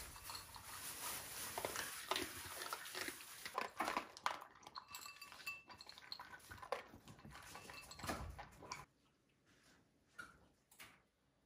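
Two Welsh corgis eating dry kibble from ceramic bowls: irregular crunching and chewing, with kibble clinking against the bowls. It stops suddenly about nine seconds in, leaving a couple of faint small sounds.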